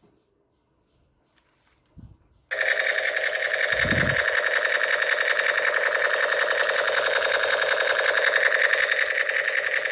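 Battery-powered toy gun firing on automatic: a fast, steady mechanical rattle that starts abruptly about two and a half seconds in, after a near-silent pause, with a low thump shortly after it starts.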